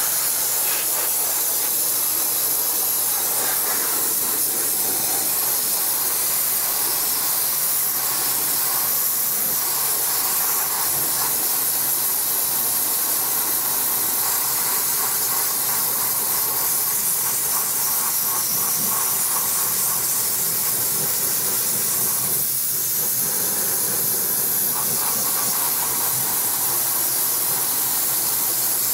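Dry ice blasting gun running a continuous jet of compressed air and dry ice: a loud, steady hiss. It is blasting grime off the front strut and plastic fender liner of a car's wheel well.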